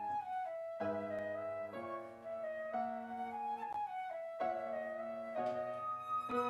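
Slow instrumental music: a flute-like melody of held notes over sustained lower chords. The whole texture breaks off briefly twice, early on and about four seconds in, before the next phrase begins.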